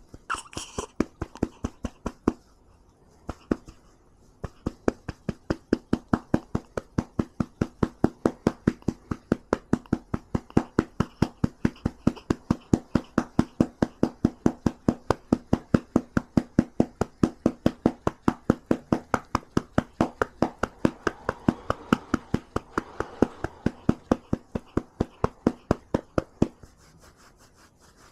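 A hand patting a baby's back to bring up a burp: a steady run of soft pats, about four a second, with a short break a few seconds in, stopping near the end.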